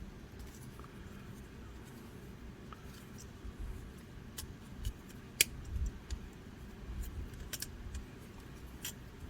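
Scattered sharp clicks and light knocks from the joints and parts of a transforming robot toy figure being handled and moved, with a low rumble of handling; the loudest click comes about halfway through.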